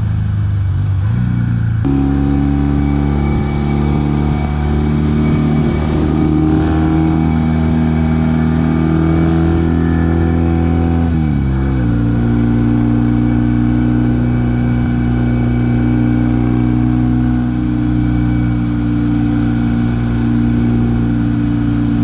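1968 Norton Commando's 750 cc parallel-twin engine running on the move at a steady speed. The engine note changes about two seconds in, and the revs drop about halfway through, then hold steady.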